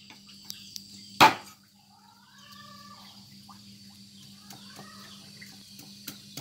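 A knife chopping into a mango stone on a wooden chopping board: one hard chop about a second in, with a couple of light taps before it.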